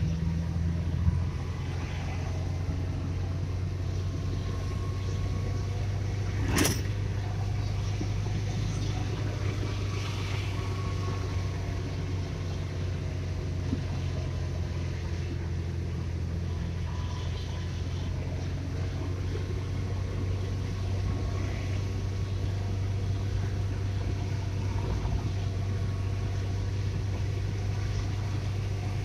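Car driving, heard from inside the cabin: a steady low rumble of engine and road noise with faint slowly shifting engine tones. A single sharp click about six and a half seconds in.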